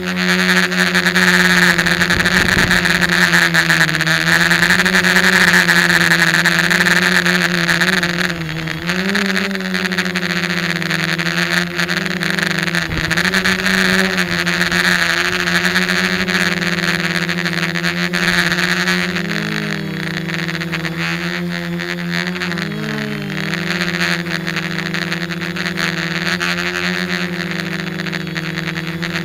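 F450 quadcopter's four brushless motors and propellers in flight, a steady buzzing hum with a strong hiss of prop wash on the onboard camera's microphone. The pitch dips and rises a few times as the throttle is worked, and the sound grows a little quieter about eight seconds in and again later on.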